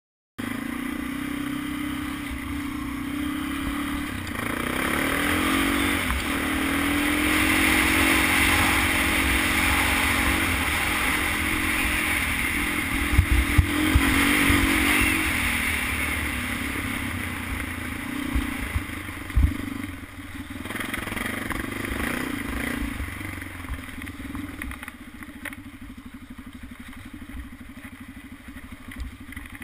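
Honda 400EX quad's single-cylinder four-stroke engine running under way, revving up about five seconds in and easing back to lower revs in the last third. Sharp knocks and clatter from the quad over bumps come a few times near the middle.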